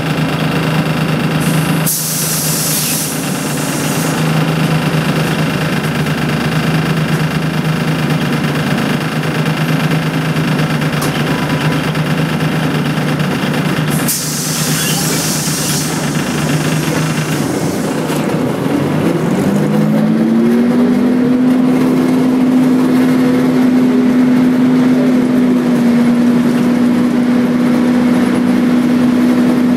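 Volvo B10BLE bus's rear-mounted six-cylinder diesel engine heard from inside the saloon, running steadily on a low note, then rising in pitch about two-thirds of the way through and holding on a higher note. Two short hisses come near the start and about halfway.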